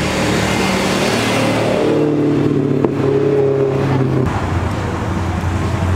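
A BMW E92 3-series coupe's engine under acceleration as the car pulls past and away. Its note holds steady for a couple of seconds, with a single sharp crack in the middle, then cuts off abruptly about four seconds in. A lower, steady engine note from another car is left behind.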